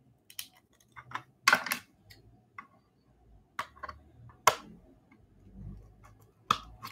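Scattered sharp clicks and light taps of a hard clear plastic case being handled and worked open, about eight in all, the loudest about one and a half and four and a half seconds in. Near the end, scissors are set against the case.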